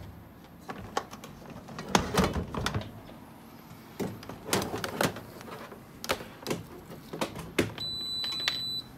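Scattered clicks and knocks from handling the Tefal multicooker and its plug and cables. Near the end comes a single high-pitched electronic beep lasting about a second: the cooker's power-on beep as it starts up.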